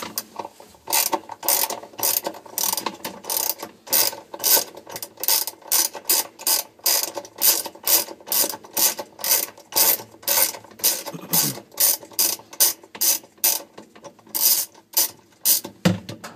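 Socket ratchet wrench with an 11 mm socket clicking as it is worked back and forth, about three clicks a second with a few short pauses, unscrewing the bolt that holds the agitator of a Kenmore 70 series top-load washer. The clicking stops near the end as the bolt comes free.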